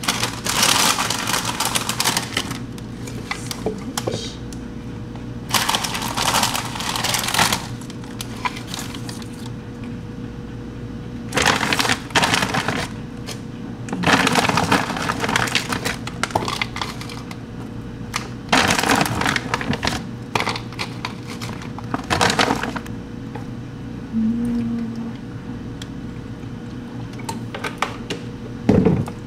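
Plastic bags of spinach and fruit rustling and being handled, with chunks dropping into a plastic blender cup, in about six short bursts separated by pauses. A steady low hum sits underneath throughout.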